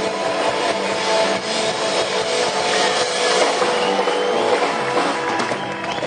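Live rock band playing: electric guitar, bass guitar and drum kit together in a loud, continuous passage.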